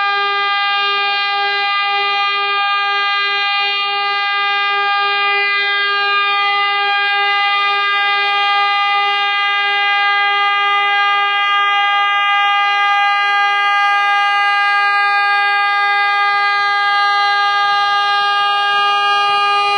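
Air horn of a 060-DA (LDE2100) diesel-electric locomotive held in one long, steady, unbroken blast.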